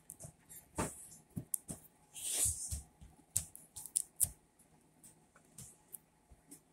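Irregular light taps and clicks from paper and craft materials being handled on a table, with a brief papery rustle about two seconds in.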